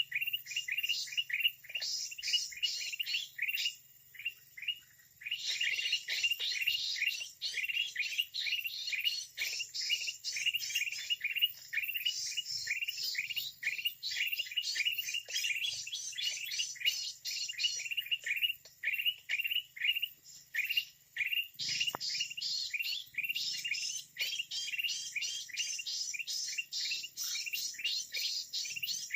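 Red-eyed bulbuls calling: a steady run of short chirps, about four a second, with a thicker chorus of higher chirps joining in twice, as a large flock gathers at the lure.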